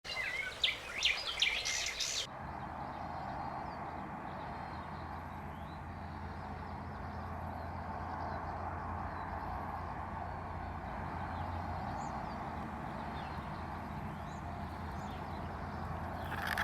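Steady engine hum of a small Claas combine harvester running, with birds chirping faintly over it. The first two seconds hold a louder, noisier sound with sharp clicks that cuts off suddenly.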